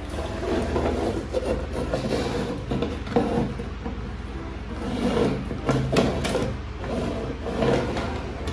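Plastic toy cars pushed by hand along a wooden board: wheels rolling and scraping, with a few sharp plastic knocks, over a steady low hum.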